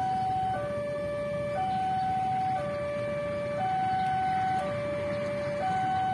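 Railway level-crossing warning alarm sounding its two-tone signal, a higher and a lower tone alternating about once a second, warning that a train is approaching. A steady low rumble runs underneath.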